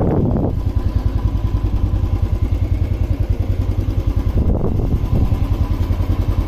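Motorcycle engine idling, an even low pulse, with wind noise on the microphone in the first half second.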